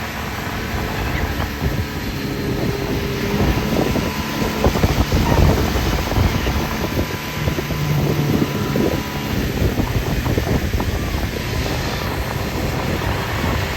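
Wind buffeting the microphone in uneven gusts over a motorboat running at speed, towing a tube across the water.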